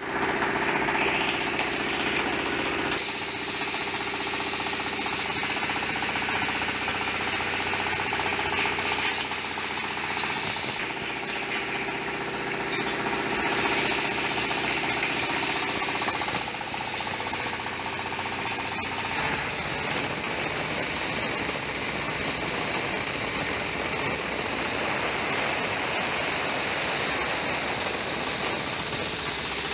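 Hammer mill running steadily while grinding chipped cinnamon bark, a loud continuous mechanical noise with rattling. Its tone shifts abruptly a few times.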